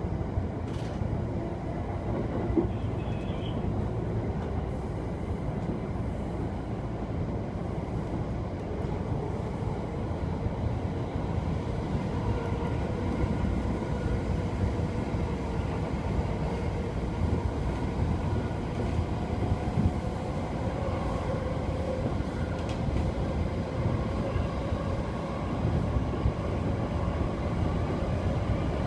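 JR East E231 series electric train running, heard from inside the driver's cab: a steady rumble of wheels on rail. A faint whine comes in over it in the second half.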